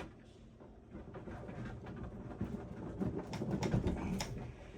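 Handling noise of cables and connectors being worked loose inside a desktop PC case: uneven rustling with a few light clicks in the second half.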